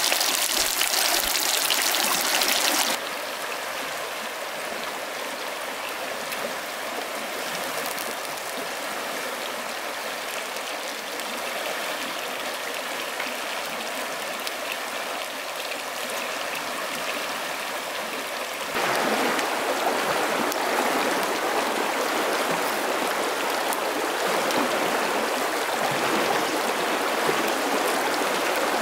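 Chicken wings sizzling in a frying pan over a campfire for about the first three seconds, then a shallow stream running over stones, which grows louder about two-thirds of the way in.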